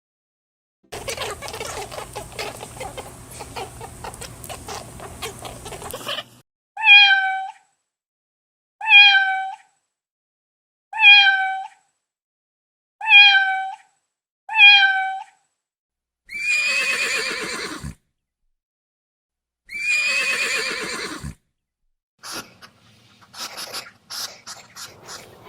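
Cat meowing: after a few seconds of rough, crackly noise come five short, identical meows about two seconds apart, then two longer, louder meows that fall in pitch. Scattered clicks follow near the end.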